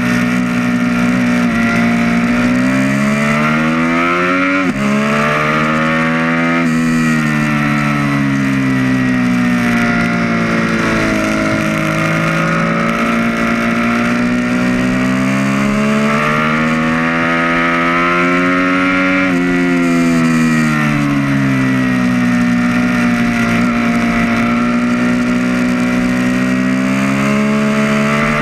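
Triumph Street Triple R's 675 cc inline-three engine heard onboard at track speed, its pitch climbing under hard acceleration and dropping as the rider rolls off and brakes for corners, several times over.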